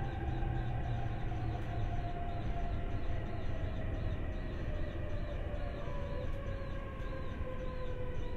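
Running noise inside a JR East E531-series electric train's motor car: a steady rumble of wheels on rail under the traction motor whine, which falls slowly in pitch as the train slows, approaching a station stop.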